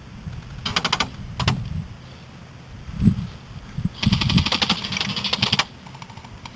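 Airsoft guns firing on full auto as rapid, evenly spaced clicking bursts: a short burst about a second in, a brief one just after, and a longer burst of about a second and a half near the middle.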